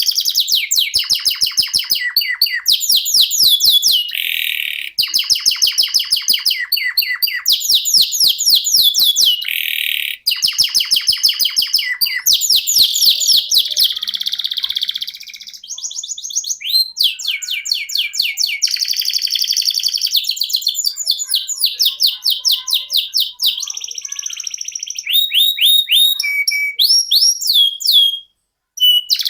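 Domestic canary singing a long run of rapid rolling trills, each a fast repeat of one note before switching to the next, with only brief breaks.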